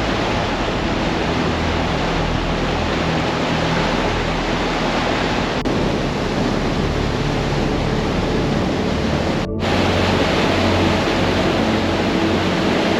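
Rushing water, a steady loud hiss as from a waterfall or fast stream, with a brief break about two-thirds of the way through, over quiet background music with held low notes.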